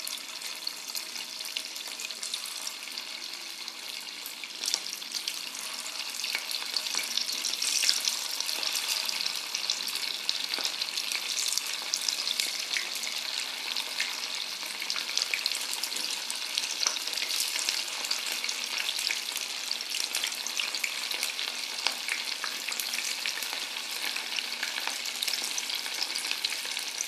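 Cornflour-coated paneer cubes deep-frying in hot refined oil: a steady sizzle full of fine crackles, growing stronger after the first few seconds as more cubes go into the oil.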